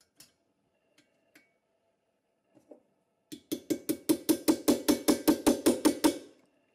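A small hammer tapping a steel socket set over the axle end of a toy truck's wheels, metal on metal: after a few faint clicks of the socket being placed, a quick even run of about eighteen taps, roughly six a second, lasting about three seconds.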